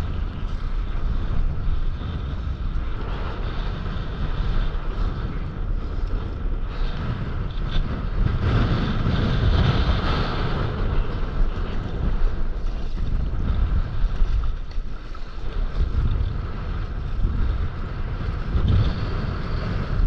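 Wind buffeting the microphone over the rushing wash of sea waves, rising and falling in gusts.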